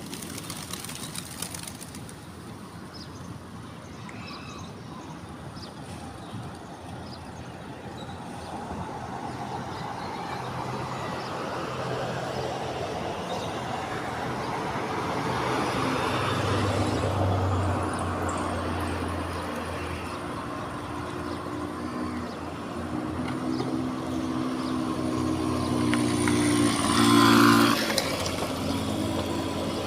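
Motor vehicle noise: a vehicle draws near, then an engine runs with a steady low hum that peaks near the end. A few faint bird chirps sound underneath.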